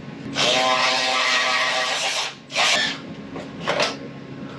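Power drill or driver running for about two seconds with its motor whine rising slightly, then a short burst and a briefer, weaker one.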